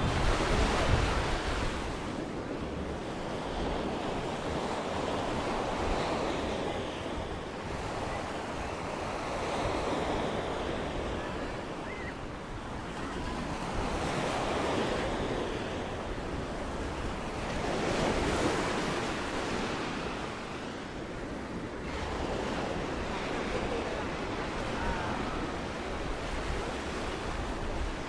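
Surf breaking on a sandy beach, the wash of the waves swelling and fading every four to five seconds, with wind rumbling on the microphone.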